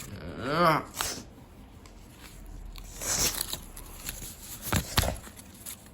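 A brief squealing cry that rises and falls in pitch, followed by several sharp clacks and a rustle of things being handled.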